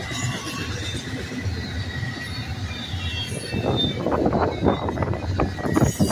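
Double-stack intermodal train's container well cars rolling past with a steady low rumble. From about halfway, rapid clanking and knocking from the wheels and cars builds and grows louder.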